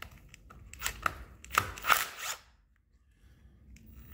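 A cordless impact driver run in a few short bursts, about a second in and again near two seconds, backing out the 8 mm bolts of a motorcycle's oil filter cover.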